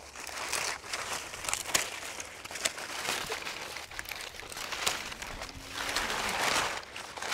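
Guava tree leaves and branches rustling and crackling as they are handled and cut back during pruning, with sharp clicks scattered throughout and a longer, louder rustle near the end.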